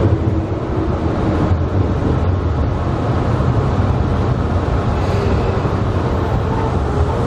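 Electric commuter train running slowly alongside a station platform, heard from the cab: a steady low rumble of wheels and running gear with a faint hum from the motors.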